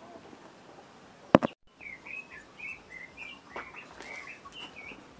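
A single sharp knock about a second in, then a small bird chirping repeatedly in short notes that bend up and down.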